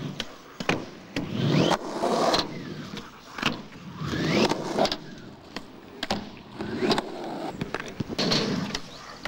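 Skateboard riding on asphalt and a wooden ramp: polyurethane wheels rolling in swells of noise, trucks scraping along the ramp edge, and several sharp clacks of the board hitting and landing.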